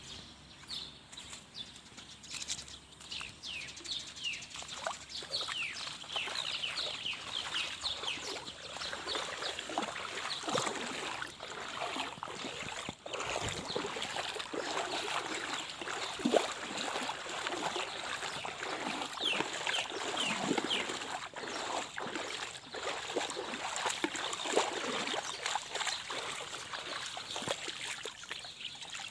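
Shallow river water splashing and sloshing in irregular strokes, as from someone wading through it. Short high bird chirps come in bunches near the start and again about two-thirds of the way through.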